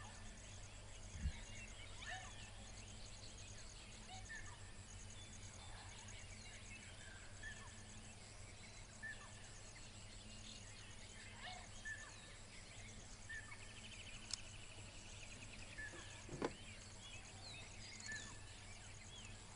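Faint natural outdoor ambience with birds calling: a short high note repeated about once a second, other scattered chirps, and a brief rapid trill about two-thirds of the way through, over a steady low hum. Two soft knocks, one about a second in and a louder one about three-quarters through.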